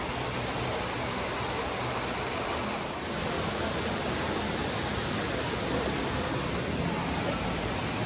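Creek water rushing over a low stone spillway and small waterfall cascades, a steady rush of falling water.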